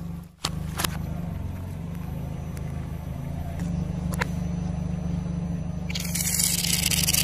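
A car engine idles with a steady low hum, with a few light clicks. About six seconds in, an aerosol can of shaving foam sprays with a loud hiss for about a second and a half.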